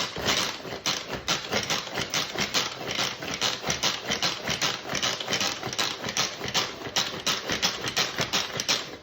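Pampered Chef manual pull-cord food processor being worked rapidly to mince onion: a fast, rhythmic plastic clatter of about four strokes a second that keeps up throughout.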